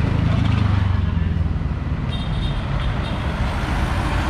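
Street traffic: a motor scooter's engine rumbles past close by in the first second or so, then traffic carries on as a steady hum.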